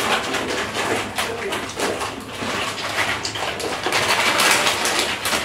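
Plastic snack sachets crinkling and rustling in a dense, crackly patter as several people handle them and tip the contents into their mouths.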